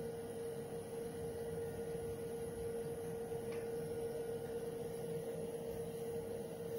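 A steady hum with one held mid-pitched tone, unchanging throughout.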